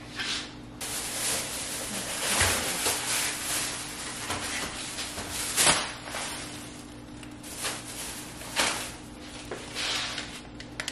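Groceries being put away in a kitchen refrigerator: several seconds of rustling and shuffling of packages, then a sharp knock about six seconds in and another lighter one a few seconds later. A faint steady hum runs underneath.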